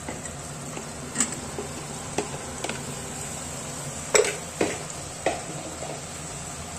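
Marinated mushrooms sizzling in a kadhai of hot masala while a steel spoon stirs them, the spoon clinking against the pan about six times, sharpest about four seconds in.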